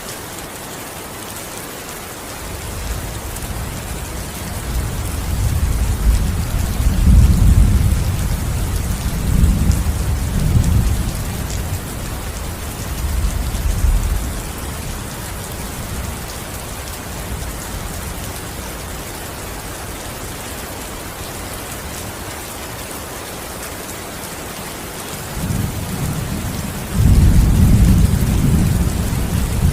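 Steady rain falling, with two long low rumbles of thunder: one building a few seconds in and dying away around the middle, another swelling near the end.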